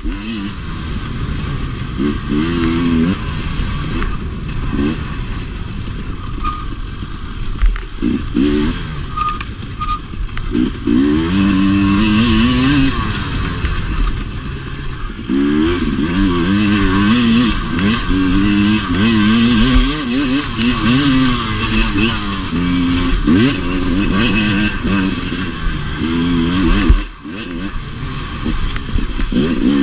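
2017 KTM 250 XC-W two-stroke dirt bike engine revving up and down again and again as it is ridden off-road, with knocks and clatter from the bike. Near the end the engine drops off briefly, then revs back up.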